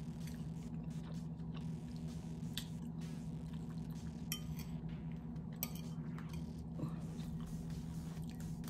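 A person chewing and slurping instant noodles, with a metal fork clinking against a ceramic bowl several times. A steady low hum runs underneath.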